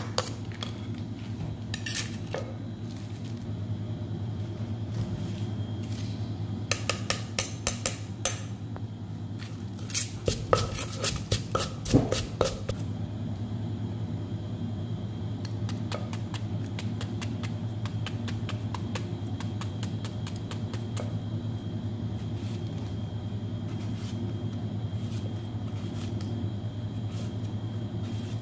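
Wooden pestle knocking in a mortar and a metal spoon clinking against it as chillies, garlic and salt are pounded: a quick run of sharp knocks about seven seconds in, a louder cluster around ten to twelve seconds, then lighter regular taps, over a steady low hum.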